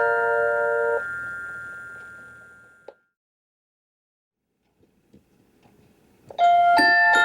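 Mr. Christmas animated chimes clock finishing a tune: the melody stops about a second in and its last bell notes ring out and fade. A click follows, then a few seconds of silence with faint clicks. Near the end the next tune starts with bright bell-like chime notes.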